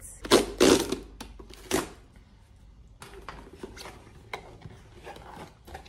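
White cardboard mailer box being opened by hand: a few loud rasping bursts as the lid is pulled free in the first two seconds, then quieter rustling and light taps of cardboard flaps being handled.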